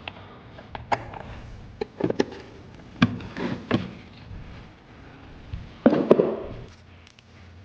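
Irregular clicks and knocks from tools and parts being handled, with a louder thump about six seconds in.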